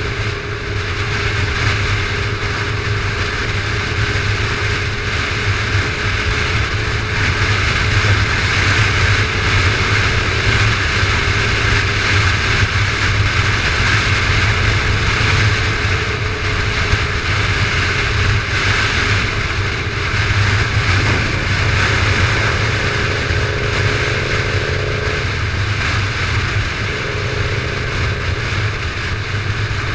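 Motorcycle engine running at steady cruising speed, heard from the rider's seat, with heavy wind and road rush over the microphone. The engine note holds mostly steady, shifting a little near the end.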